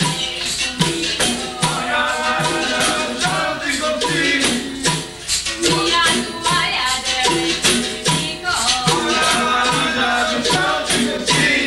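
Capoeira roda music: voices singing over percussion of the kind played at a roda, pandeiro and caxixi shaker, keeping a steady beat of low strokes about twice a second.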